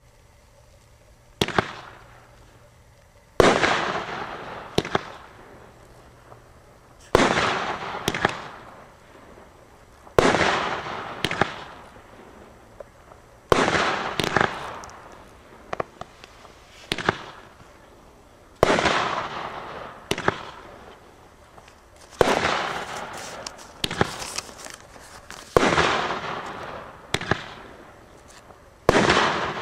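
A 300–350 g consumer fireworks cake firing its shots one after another, about every three seconds. Each shot is a sharp thump as it leaves the tube, followed about two seconds later by a louder burst that trails off in a fading hiss.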